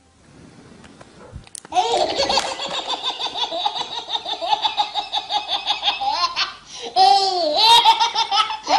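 A baby belly-laughing: a long run of quick, rhythmic laughs starting about two seconds in, then, after a brief pause, more laughs near the end.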